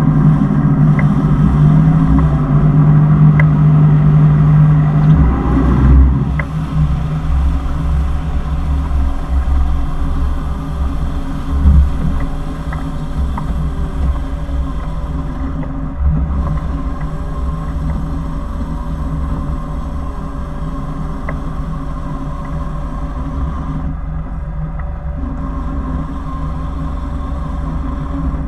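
Motorboat engine running steadily, easing off a little about six seconds in, with a single knock near the middle.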